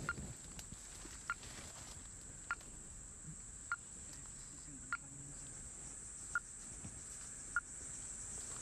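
Steady, high-pitched drone of insects in the forest, with a short clear note repeating about every second and a quarter.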